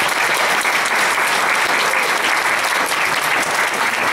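An audience applauding steadily: many people clapping at once after a talk ends.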